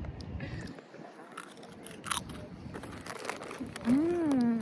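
Crisps being crunched and a crisp packet crinkling: scattered short crackles. Near the end comes a short hum that rises and then falls in pitch.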